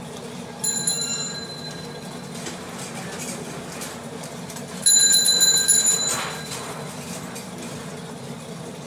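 Two sudden metallic rings about four seconds apart, each dying away; the second is louder and longer. A steady low hum runs underneath.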